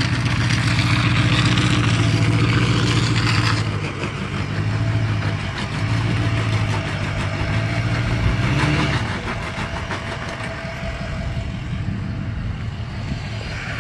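Tow truck engine running steadily, with a steady hiss over it for the first few seconds. About nine seconds in, the engine pitch rises briefly and then fades.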